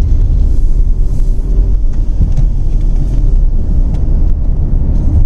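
Tata Nexon turbo petrol's three-cylinder engine and tyres as heard from inside the cabin while driving: a steady, loud low rumble.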